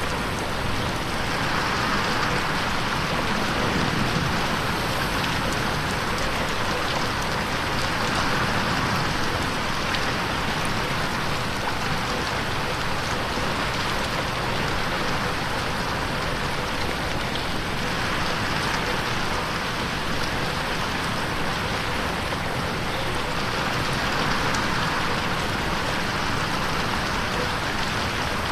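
Steady rain pattering on a window pane, a dense even hiss of drops that swells and eases slowly every several seconds.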